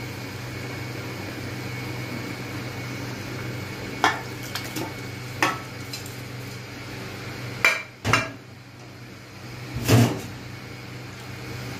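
Metal bowl and utensils clanking against the rim of an aluminium cooking pot as soaked rice is tipped into simmering chicken curry: a string of sharp clanks, the loudest near the end, over a steady low hum.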